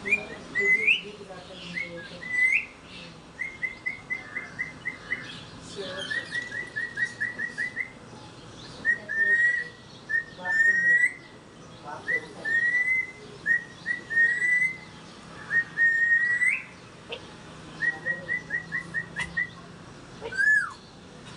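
Pet parrot whistling: runs of quick short notes at one pitch, about six a second, broken up by single upswept whistles and pauses. Near the end comes a longer whistle that falls in pitch.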